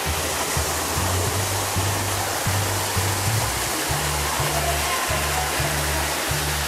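Artificial rock waterfall splashing steadily, under background music with a pulsing bass line that turns choppier and more rhythmic about four seconds in.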